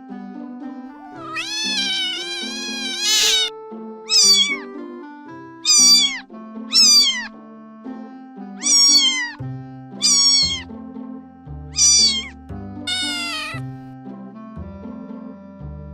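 A cat meowing over and over, about eight separate meows, the first one long and drawn out, each falling in pitch at its end. Background music plays underneath, with a bass line coming in about halfway through.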